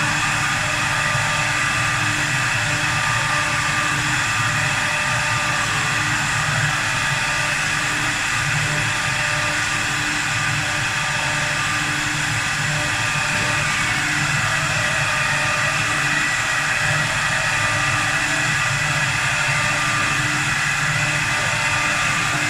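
4-axis CNC wood lathe running steadily while turning a wooden workpiece, a constant machine whine with several steady tones over a haze of cutting noise.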